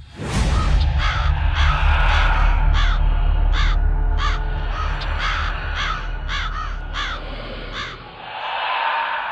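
Logo sound effect: a sudden hit, then a crow cawing a dozen or so times over a low rumbling drone, with a swelling whoosh near the end.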